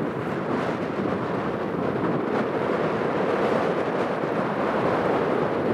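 Steady wind buffeting the microphone, a loud even rushing noise with no pauses.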